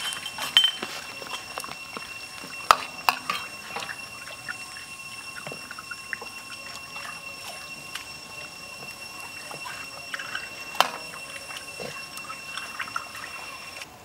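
A metal ladle stirring soup in a steel wok, the liquid sloshing, with a few sharp clinks of the ladle against the pan.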